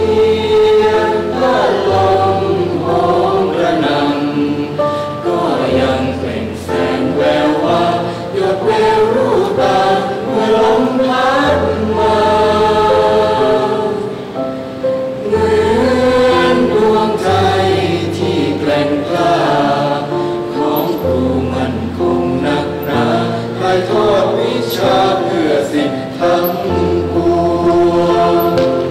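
Mixed choir of young men and women singing a slow song together, accompanied by a Korg electronic keyboard holding long low bass notes that change every few seconds.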